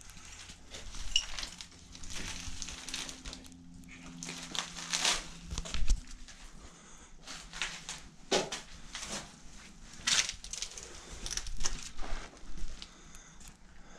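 Footsteps crunching and crackling over debris, an irregular series of steps.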